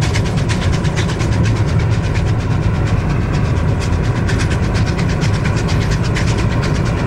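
Victorian Railways R class 4-6-4 steam locomotive working hard up a steep grade, its quick exhaust beats from the double Lempor exhaust heard from a vehicle pacing it, over a steady low road rumble.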